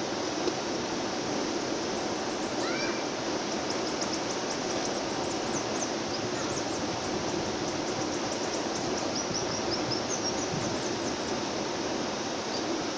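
Steady rushing outdoor noise with many short, high chirps from birds scattered through it.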